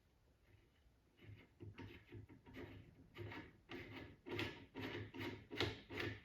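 Muzzle brake being screwed onto an AK-47's threaded muzzle by hand, its notches clicking over the spring-loaded detent pin. The clicks start about a second in and settle to about two a second.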